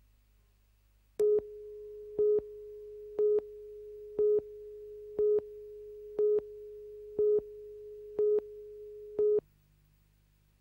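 Television news videotape countdown leader: a steady tone with a louder beep once a second, nine beeps in all, cutting off suddenly near the end.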